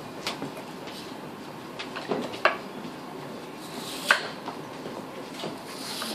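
Chef's knife slicing through lotus root on a wooden cutting board: a few sharp, irregularly spaced knocks of the blade meeting the board, the loudest about four seconds in.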